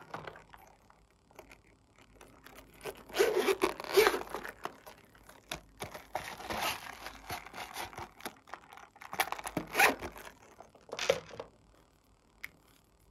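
Zipper on a hard-shell zippered pencil case being pulled open in several scratchy runs, the loudest about four seconds in and again near ten seconds in, with handling of the case.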